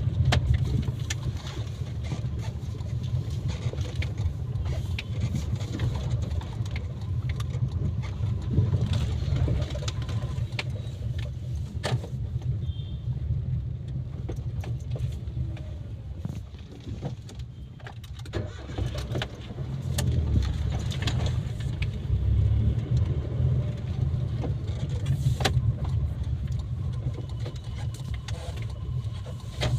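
Maruti WagonR being driven on a road test after a clutch repair: a steady low rumble of engine and road noise, with scattered clicks and knocks.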